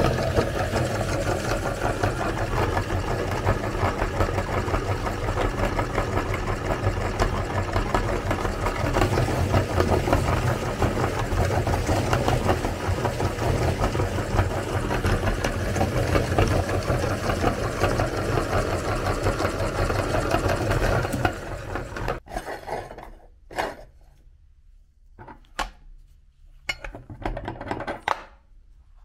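Motor-driven meat grinder running steadily as it crushes hard colourful cookies into crumbs, then stopping about three-quarters of the way through. After it stops, scattered light metal clinks and taps are heard as the grinder's plate and blade are handled.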